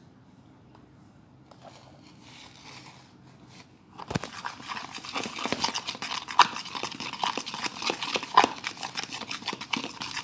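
A fork stirring sticky glue slime in a bowl: after a few quiet seconds, a quick, irregular run of wet clicks and scrapes starts about four seconds in.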